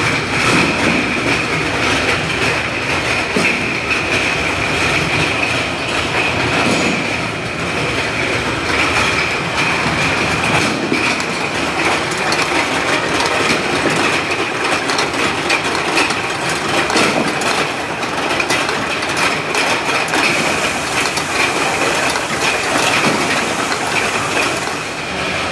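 US-100A automatic bottle unscrambler running: a continuous clatter of plastic bottles knocking against each other and the guides as the belts carry them along, with a steady high whine underneath.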